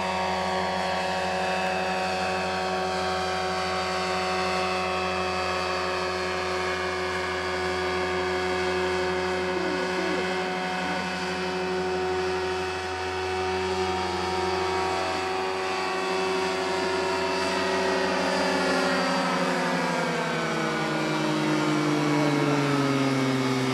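Powered parachute's engine and caged pusher propeller running steadily in flight, a continuous droning buzz; its pitch slides gradually lower over the last few seconds.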